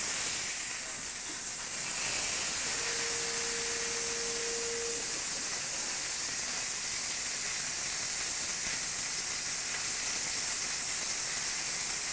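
Hamburger frying in a pan, a steady sizzling hiss. A short steady tone sounds briefly about three seconds in.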